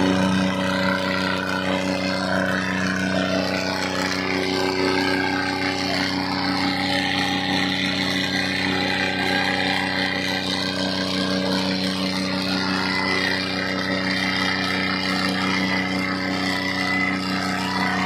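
John Deere and Eicher tractor diesel engines running steadily at full load, pulling against each other in a tug-of-war with the John Deere's front wheels lifted. A crowd's noise is mixed in behind the engines.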